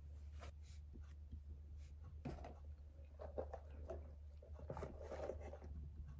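Faint steady low hum with scattered small clicks and soft rustling, the sound of small objects being handled.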